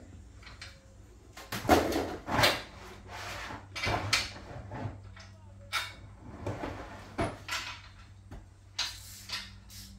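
Irregular knocks, clicks and clatter of metal and plastic parts being handled while a miter saw is fitted to its folding saw stand, over a steady low hum.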